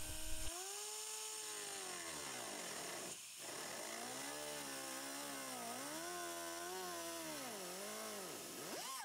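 Pneumatic cut-off tool with an abrasive disc whining as it cuts through the steel inner panel of a BMW E36 hood. The pitch sags and wavers as the wheel bites into the metal, falters briefly about three seconds in, and rises sharply right at the end as the disc comes free.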